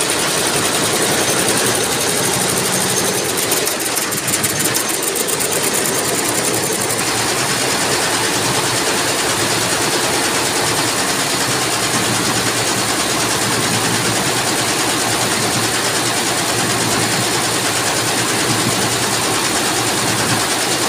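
Multi-head computerised embroidery machines (Dolphin) stitching saree fabric: a loud, steady, dense clatter of many needle heads running at once. About three seconds in, a fast, even ticking stands out for a few seconds.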